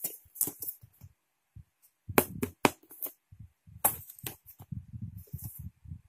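A thin corrugated plastic base plate being handled: irregular sharp clicks and taps, the loudest about two and four seconds in, with soft low thumps and rubbing as it is turned over in the hands.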